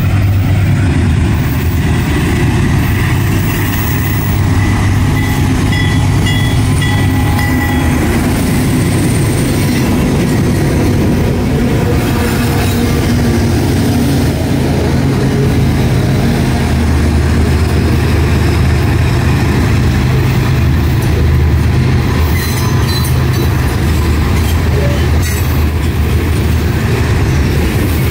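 Freight train passing close by: several CSX diesel locomotives run past near the middle, then loaded covered grain hoppers roll by with a loud, steady low rumble of wheels on rail.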